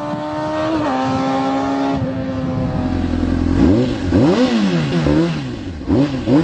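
An engine running at a steady speed, then revved up and down in quick repeated throttle blips from about three and a half seconds in.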